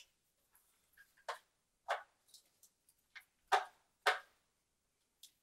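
Hard plastic of a toy starship model being handled: a scattering of short, sharp clicks and taps at uneven intervals, the clearest four about a second, two, three and a half and four seconds in.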